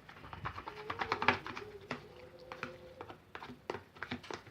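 Sticky slime of white glue, talc and water being mixed, making irregular wet clicks and small squelches as it pulls apart. A faint steady hum runs under the middle of it.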